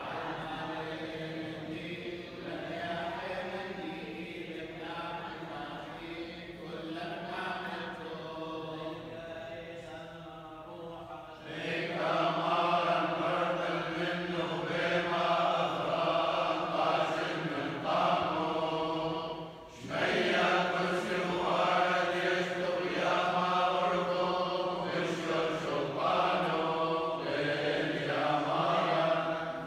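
Clergy chanting Chaldean funeral prayers together. The chant is quieter at first, grows clearly louder about a third of the way in, breaks off briefly about two-thirds of the way through, then goes on.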